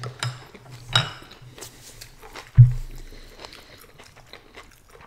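Chopsticks clinking against a small glass bowl: a few sharp clinks with a short ring in the first second, with light handling noise. About two and a half seconds in comes a single loud, dull thump, the loudest sound.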